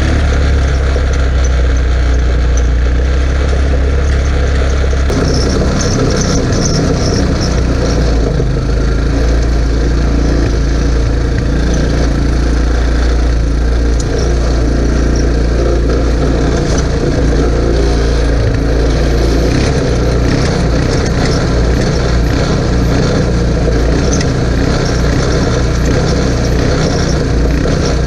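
Small Chinese 150 cc ATV engine running steadily while the quad rides along, loud and close to the microphone, its note changing about five seconds in.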